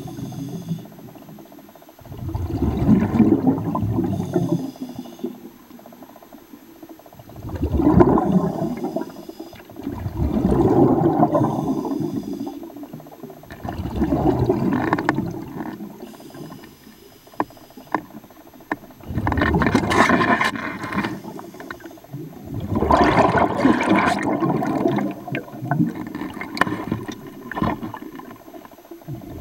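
A diver breathing underwater through a scuba regulator: every few seconds a swell of gurgling, rumbling exhaled bubbles, with a faint thin hiss of intake in between.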